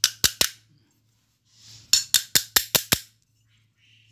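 Hammer tapping the metal end cover of an electric fan motor to set the new bearing bushing tighter in its seat: three sharp taps at the start, then a run of six quick taps, about five a second, around two seconds in.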